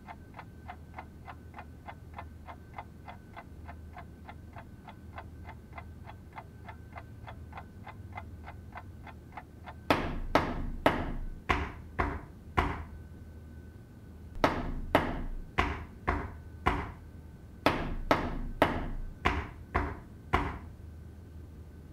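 A clock ticking rapidly and evenly for about the first ten seconds. Then loud, sharp knocks come in three quick runs of five or six blows each, with short pauses between the runs.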